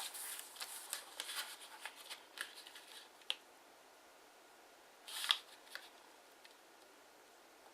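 Kraft origami paper rustling and crackling as it is folded and creased by hand: a run of small crackles for the first three seconds, a crisp rustle a little past five seconds, and little else.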